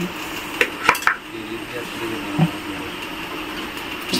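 A few quick clinks and knocks of metal kitchenware, a steel ladle scooping rice in a steel bowl and hands working in a large aluminium vessel, about a second in, with faint voices underneath.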